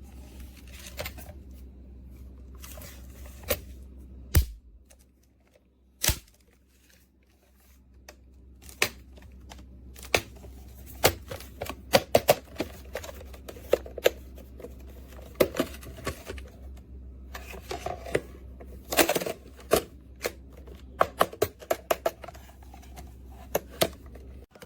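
Irregular plastic clicks and knocks from a Master Lock portable combination lock box being handled: combination dials turned and the latch and lid clicking, more frequent in the second half. A steady low hum lies underneath and drops out for a few seconds near the start.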